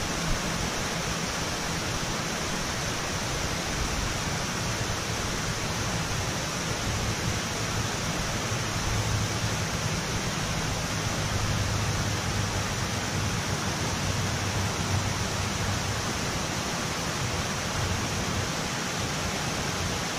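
Steady rush of water pouring through a dam's spillway gates, an even, unbroken noise with a faint low hum underneath.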